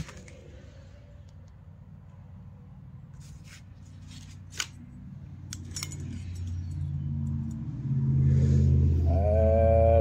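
Thin steel clutch plates clicking and clinking against dial calipers as they are handled and measured. A low, steady motor rumble builds up over the second half and is the loudest sound by the end.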